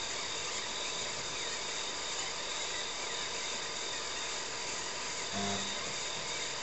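TRS-80 Model 16B's 8-inch floppy disk drive working while utility programs are copied to the hard disk, a steady whirring hiss with a faint high whine. A short low buzz comes about five seconds in.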